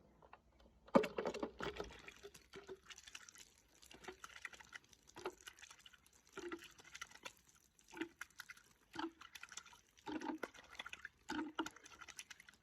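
Water splashing in short spurts, about one a second, the loudest about a second in.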